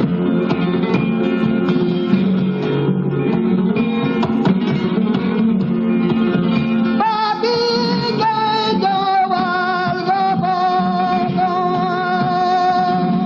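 Flamenco guitar playing, joined about seven seconds in by a male flamenco singer (cante) holding a long, wavering sung line over the guitar.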